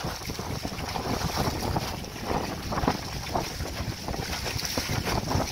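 Wind buffeting the microphone over water rushing and splashing against an aluminum canoe's hull and wooden leeboard as it sails, with irregular splashes from the spray about two to three and a half seconds in.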